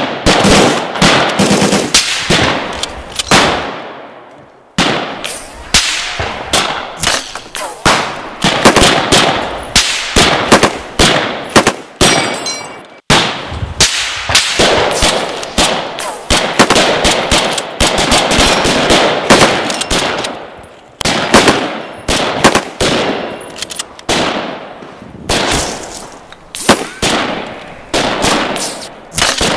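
Sustained firefight gunfire from World War II small arms: single rifle shots mixed with rapid automatic bursts, one close after another. There is a short lull about four seconds in and an abrupt break about thirteen seconds in.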